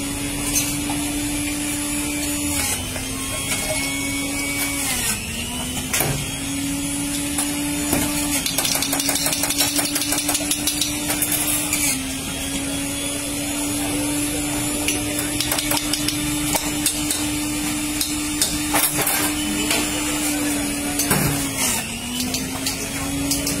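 A steady motor hum whose pitch sags briefly several times, with clinks and knocks of steel tumblers and glasses being handled on a metal counter, including a fast run of clicks about eight to ten seconds in.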